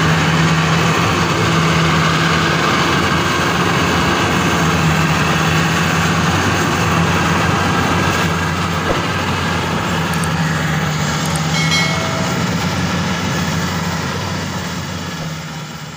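Maxxi Bimo rice combine harvester running steadily as it cuts standing rice, its engine and machinery making a continuous drone. The sound fades away near the end.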